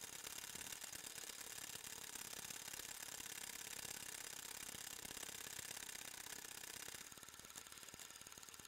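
Small film-transport mechanism of an 8mm movie camera or projector running: a faint, fast, steady clatter with a high hiss over it, dropping a little about seven seconds in.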